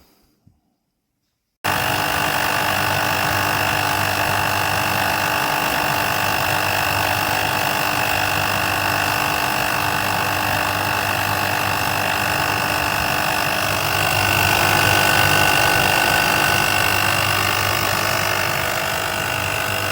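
12V electric pump of a FEANISIFEI car jack kit switching on about two seconds in and running steadily, building pressure, with a steady whine over a low hum that grows a little louder about two-thirds of the way through.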